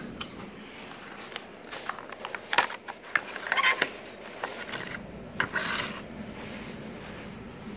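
Small cardboard processor box and its cardboard insert being handled and pulled open: rubbing and scraping with a few sharp clicks, and a longer rustle about five and a half seconds in.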